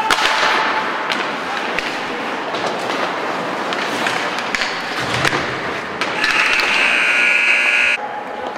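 Ice hockey play in an indoor rink: skates scraping on the ice and sticks and puck clacking, with sharp clicks among the noise. About six seconds in, the rink's horn sounds steadily for about two seconds, marking the end of the period, and cuts off suddenly.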